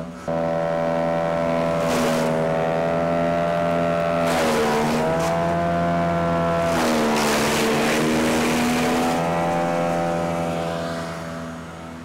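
Engine of a GX Commercial Big Bear BBC72 wood chipper running at speed. Its pitch sags about four seconds in, and again for a couple of seconds from about seven seconds, each time with a crunching rush of oak limbs being chipped. The engine bogs under the load of the hard wood.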